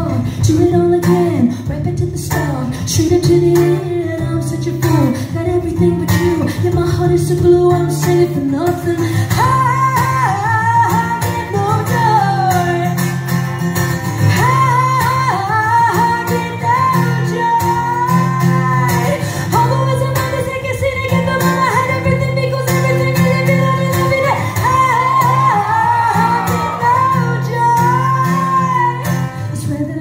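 A female voice singing a song over a strummed acoustic guitar, played live; the voice rises higher from about nine seconds in.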